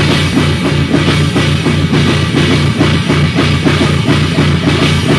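Rock band playing loud and heavy live: drum kit keeping a fast, even beat under electric guitar and bass.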